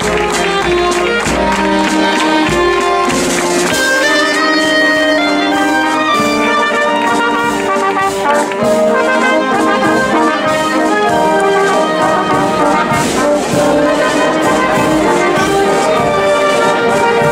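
A community wind band playing as it marches, brass carrying the melody over percussion hits.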